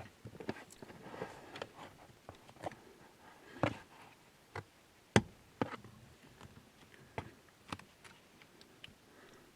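Irregular clicks and light knocks from hands working a stainless steel pedal cover onto a car's brake pedal, prying its rubber backing over the pedal. The sharpest click comes about five seconds in.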